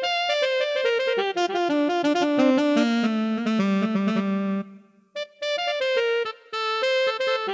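Korg microSTATION synthesizer being played: a run of notes stepping downward in pitch, which cuts off abruptly about four and a half seconds in, then notes start again.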